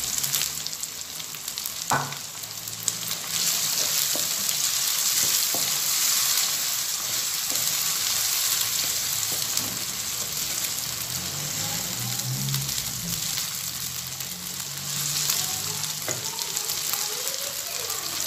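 Onions, freshly added tomatoes and green chillies sizzling in hot oil in a kadhai and stirred with a wooden spatula: a steady frying hiss, with a sharp knock about two seconds in.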